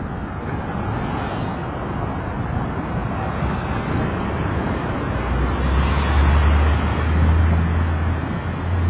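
Steady road and wind noise from a moving vehicle, heard through a vehicle-mounted camera. A deep rumble grows louder about five seconds in.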